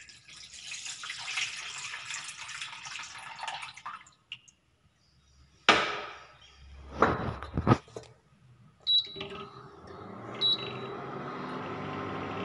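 Milk poured from a glass jug into a stainless steel saucepan for about four seconds, followed by a few sharp knocks. About nine seconds in, the induction cooktop gives two short high beeps and starts a steady hum as it begins heating the milk.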